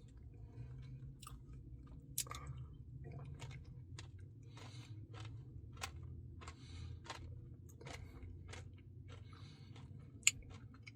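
Close-up chewing and mouth sounds of someone eating a Salted Caramel Truffle Blizzard ice cream, with irregular small clicks and crunches. A sharper click comes about two seconds in and another near the end, over a steady low hum.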